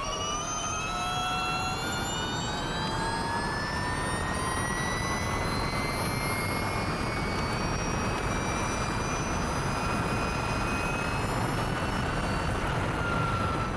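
Ducati V21L electric MotoE racing motorcycle at full speed, heard from its onboard camera: a high electric-motor whine that climbs in pitch for about the first eight seconds as the bike accelerates, then holds roughly steady, over a constant rush of wind.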